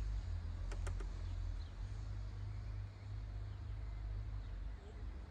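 Outdoor ambience: a steady low rumble with two light clicks close together about a second in.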